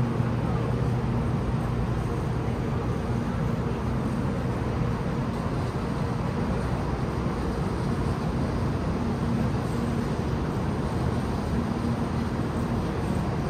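Steady machine hum and rumble with a constant low droning tone, the ambience of a high-speed railway station platform; no change in pitch or loudness.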